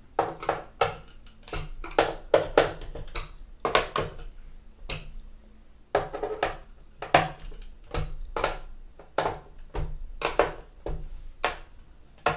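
Irregular run of sharp clicks and taps: a precision screwdriver being worked screw by screw over a laptop's plastic bottom case, metal knocking on hard plastic. There is a short lull about five seconds in.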